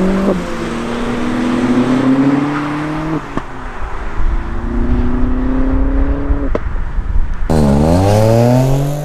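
Modified car engine accelerating hard, its pitch climbing steadily and dropping sharply at two upshifts, about a third and two-thirds of the way through. Near the end another engine takes over, its pitch dipping and then rising as it revs up.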